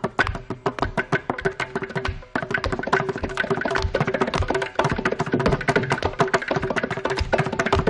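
Mridangam and ghatam playing a fast Carnatic percussion passage: rapid, dense strokes over a steady ringing pitch. The playing grows denser and louder about two and a half seconds in.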